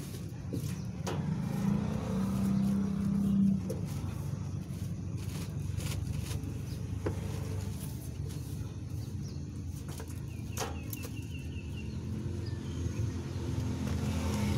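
Steady low rumble of background road traffic, with a few light clicks and a short run of high chirps about ten seconds in.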